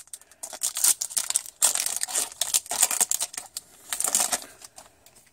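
A Pokémon booster pack's wrapper being torn open and crinkled in the hands as the cards are pulled out: a run of irregular crackles and rustles.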